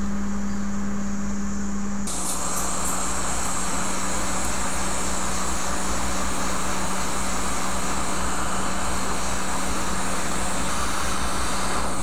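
Hot-air rework station blowing over a MacBook logic board to desolder a CD3215 USB-C controller chip: a steady airy hiss over a constant low hum. The hiss gets stronger and brighter about two seconds in, then holds.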